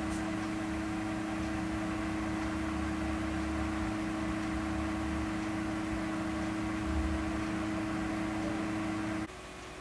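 AMD Wraith Stealth CPU cooler fan running in a mini PC: a steady whirring hum with a strong, even drone. Just before the end it cuts to a much quieter fan hiss, the stock Athlon 200GE cooler.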